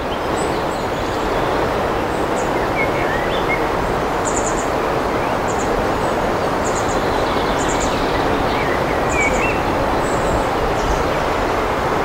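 Riverside ambience: a steady rush of flowing river water, with small birds singing over it in short, high chirps that come every second or so.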